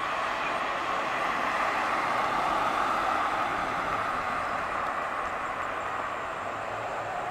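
2002 Chevrolet Corvette with a 5.7-litre V8 driving past at low speed and pulling away. The sound swells to a peak a couple of seconds in and then eases off.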